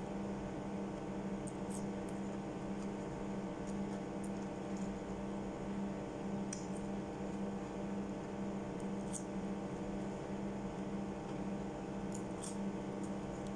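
Person eating french fries, with a handful of short, soft mouth clicks spread through, over a steady low electrical hum.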